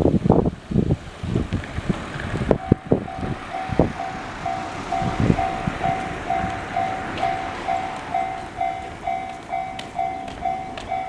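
Railway level-crossing alarm, the slightly high-pitched JR standard electronic bell, starts about two and a half seconds in and rings steadily at about two and a half strikes a second. Low gusts of wind rumble on the microphone underneath.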